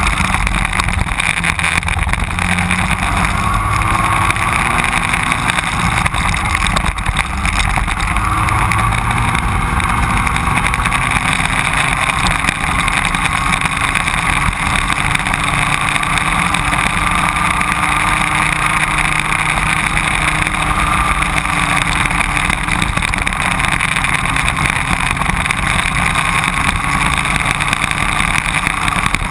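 Racing kart engine heard from on board, running hard without a break. Its pitch rises and falls gently as the kart speeds up and slows.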